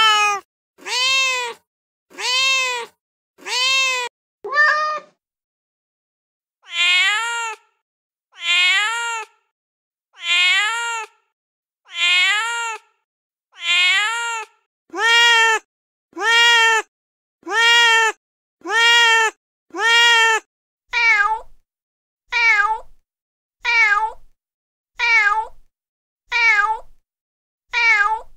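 Recorded domestic cat meows played from a cat-sounds app: the same meow repeats about once a second, each call rising then falling in pitch. The clip changes to a different meow a few times, with one short pause about five seconds in.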